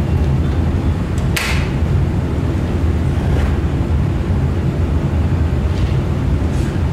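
A double-pole circuit breaker snapping on once, about a second and a half in, over a steady low rumble.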